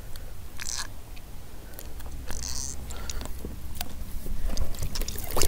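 Handling noise: scattered clicks and knocks, and two brief rustles, over a steady low rumble, getting louder near the end.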